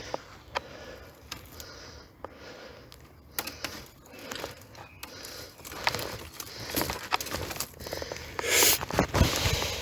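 Irregular rustling, crunching and cracking of a player moving on foot through forest undergrowth, with breathing close to the microphone. A louder rush of rustling comes about eight and a half seconds in.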